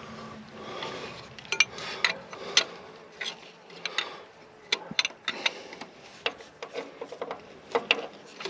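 Hand socket ratchet clicking in short, irregular strokes as a bolt is wound in.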